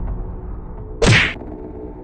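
A single whack hit sound effect about a second in: a short smack with a quickly falling pitch that cuts off sharply.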